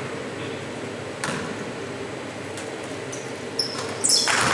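Basketball game in a gym: a ball bouncing on the court over steady crowd noise, with a few sharp sneaker squeaks near the end.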